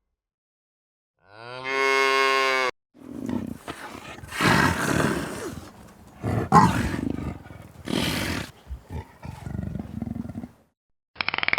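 A cow mooing once, a single long call about a second in. It is followed by several seconds of rough, noisy animal vocalising, uneven and without a clear pitch.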